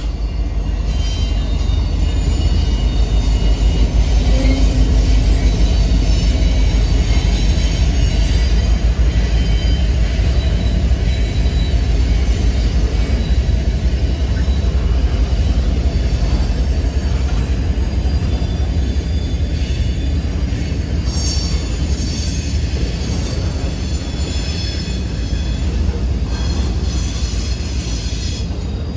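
Norfolk Southern freight train rolling through a grade crossing. A trailing diesel locomotive's deep engine rumble passes, loudest a few seconds in, then pipe-loaded flatcars roll by with steel wheels on the rail and thin high wheel squeals, mostly in the second half.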